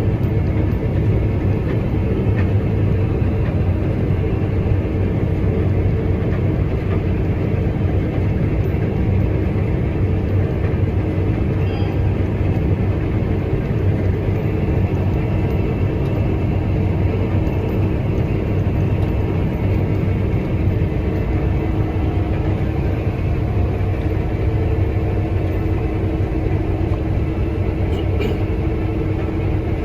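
Case IH Axial-Flow 9250 combine running steadily under load while harvesting wheat: an even machine drone with a constant low hum.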